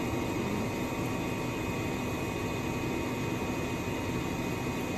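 Steady hum of a fan motor, even throughout with a few faint fixed tones.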